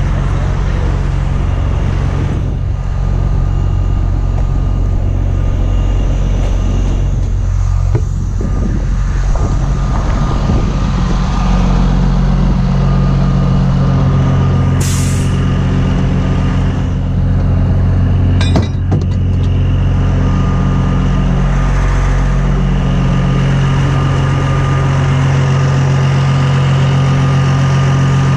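Heavy-duty tow truck's diesel engine running steadily. A short hiss of air comes about fifteen seconds in, and a sharp knock a few seconds later.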